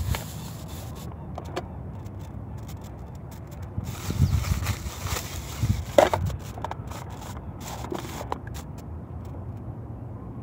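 Plastic bag and paper wrapping crinkling and rustling as they are handled and pulled open, with a cluster of crackles about four seconds in and the loudest sharp crinkle about six seconds in, over a steady low rumble.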